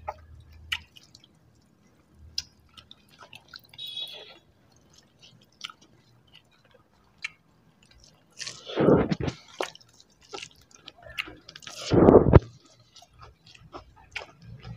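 People chewing mutton curry and fried rice, with small wet clicks from mouths and fingers, and two louder, longer mouth sounds about eight and a half and twelve seconds in.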